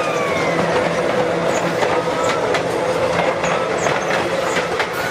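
Electric commuter train passing close by: steady rumble of steel wheels on the rails with repeated clicks over the rail joints. A high tone falls away during the first second.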